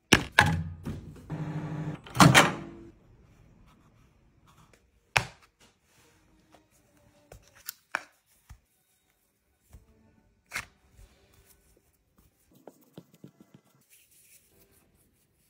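Hands handling compo, a mould and a plastic dish on a hard bench: a few loud knocks and a brief steady hum in the first couple of seconds, then scattered taps and faint rubbing as the compo is kneaded in white powder.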